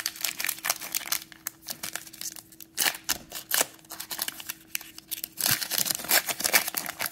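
Plastic trading-card pack wrapper being torn open and crinkled by hand: a run of sharp crackling rips, busiest in the last second and a half.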